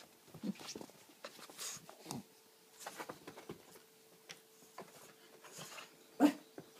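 Shih Tzu whining and giving short yips, with one loud bark near the end, asking for a drink of water.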